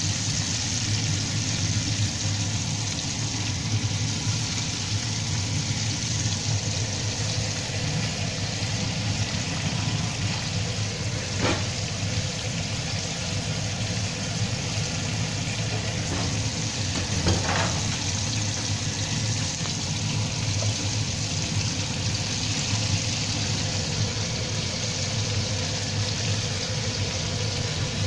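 Battered chicken pieces deep-frying in hot oil in a pan: a steady sizzle and crackle of bubbling oil, with two brief clicks about midway.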